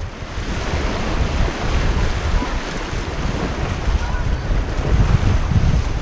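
Rushing, choppy river water splashing around an inflatable raft, with heavy wind buffeting on the camera microphone. The sound is a steady, dense rush with a deep rumble.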